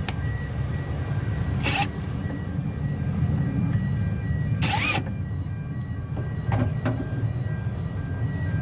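Low steady mechanical rumble under background music, with short sharp noises about two, five and seven seconds in.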